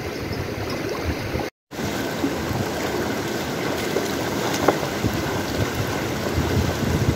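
Shallow stream running over rocks, a steady rush of water, with gusting wind rumbling on the microphone. The sound cuts out for a moment about a second and a half in, then carries on.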